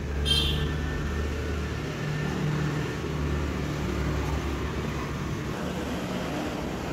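Steady low rumble of motor traffic in the background, with a brief light click near the start.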